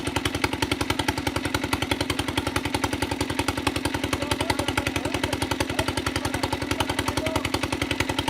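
Pump engine running steadily with a rapid, even chugging beat, typical of the single-cylinder diesel engines used to pump water out of village ponds.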